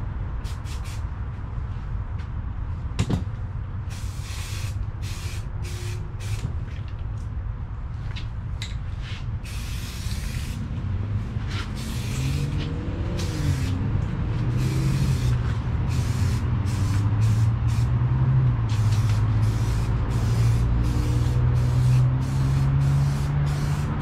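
Aerosol primer can spraying in a series of hisses, some brief and some a second or two long, laying a light first coat of primer on a plastic bumper corner. A low drone runs underneath and grows louder in the second half.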